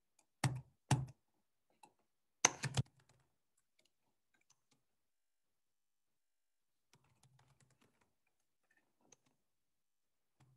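Computer keyboard typing: a few quiet, separate clicks in the first three seconds, then only faint scattered key ticks a few seconds later.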